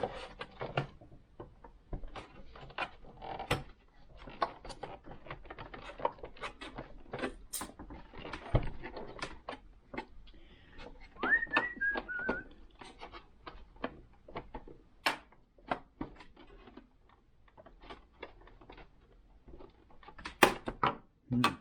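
Many irregular sharp clicks and knocks of hard plastic parts and tools being handled and pried at while taking apart a Singer Advance 7422 sewing machine. About halfway through comes a brief high whistle of a few falling notes.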